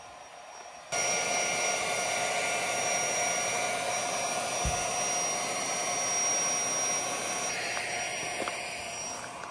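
Electric air-mattress pump switching on about a second in and running with a steady whir, easing off near the end.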